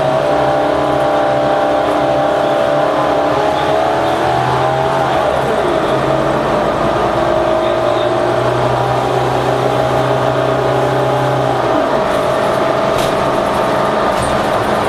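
New Flyer Xcelsior XD40 transit bus's Cummins ISL9 diesel running steadily with a low hum and a whine over it. The whine drops in pitch about five seconds in and again near twelve seconds.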